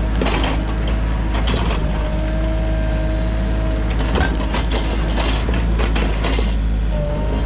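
Sany mini excavator's diesel engine running steadily under work, with a thin hydraulic whine that comes and goes and irregular knocks and cracks.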